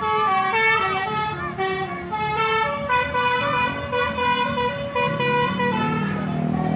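Bus 'basuri' musical horn playing a telolet-style tune, a quick run of stepped notes that jump from pitch to pitch.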